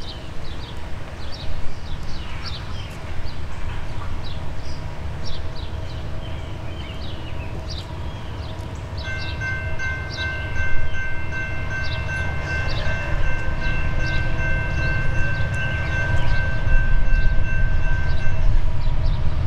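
Norfolk Southern EMD SD70ACC locomotive approaching from a distance, a low rumble that grows louder toward the end. About halfway through, its air horn sounds one long, steady chord lasting roughly nine seconds.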